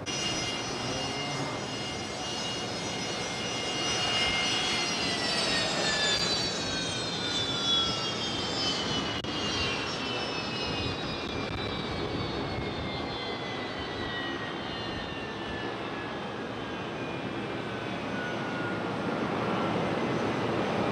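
Turbofan whine from a Fokker jet's Rolls-Royce Tay engines. The pitch holds steady for about five seconds, then falls slowly and evenly, over a steady jet rumble.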